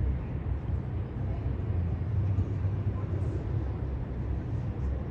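Outdoor harbour ambience: a low, uneven rumble with a faint hiss above it.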